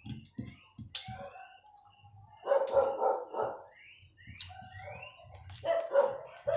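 A dog barking in short bursts, a run of barks about two and a half seconds in and more near the end, with soft low eating noises close by in the first second.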